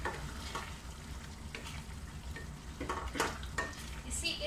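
Wooden spoon stirring chicken in a thick tomato sauce in an aluminium pot, with short scrapes and knocks against the pan that come quicker and louder near the end, over a steady low hum.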